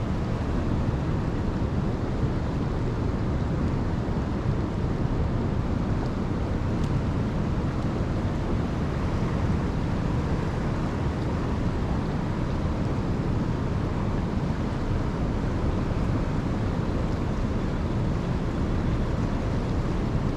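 Floodwater of a fast-flowing river rushing steadily, a constant wash of noise.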